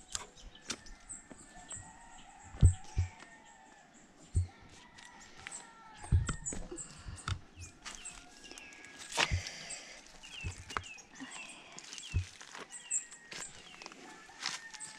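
Scattered footsteps, scuffs and knocks, a few of them sharp, with birds chirping repeatedly in the background in short calls that become more frequent in the second half.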